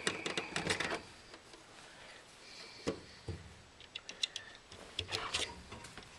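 Scattered light clicks and taps, with a couple of sharper knocks, from hands working on the furnace's wire connections.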